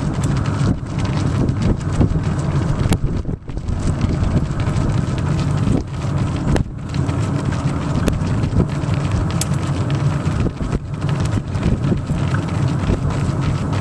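Wind buffeting the microphone of a camera moving at running pace alongside the runners: a steady low rumble with crackling gusts and brief dips.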